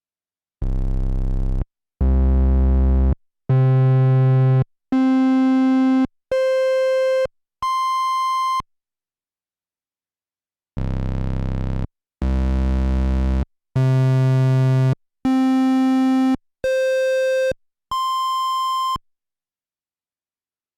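Korg Monologue analog monophonic synthesizer playing a held tone at six steadily climbing pitches, about a second each, from a deep bass up to a high note. After a short pause the same six-step climb repeats with a slightly different tone.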